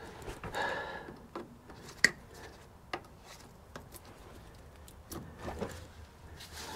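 Scattered metal clicks and clinks as a greasy roller chain is handled and fed over its sprockets by hand, with one sharper click about two seconds in.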